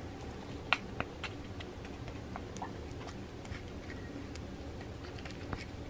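Light clicks and taps as gloved hands handle a plastic container and press resin-soaked fiberglass cloth into it, with a few sharper clicks about a second in and fainter ticks after, over a steady background hum.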